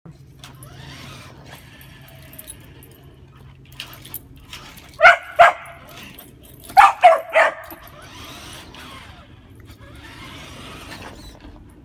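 A puppy barks five times, in two quick bursts: two sharp barks, then three more a moment later. She is barking at a radio-controlled toy monster truck.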